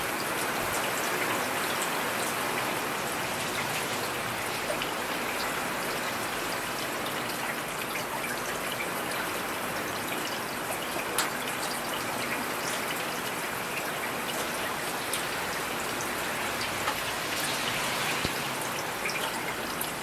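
Steady rain falling: a dense, even hiss of drops with a few brief louder ticks.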